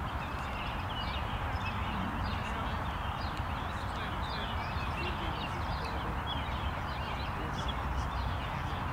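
Outdoor ambience of many birds chirping in scattered short calls, over a steady low rumble.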